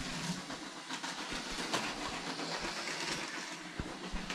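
Motorised Lego train running fast around a plastic track layout, its motor whirring and wheels clattering over the track with scattered clicks.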